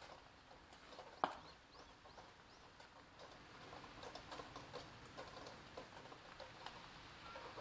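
Paper drip coffee bag being torn open and its paper hangers unfolded, a faint crackle and rustle of paper with one sharp click about a second in. Light scattered ticks of raindrops run underneath.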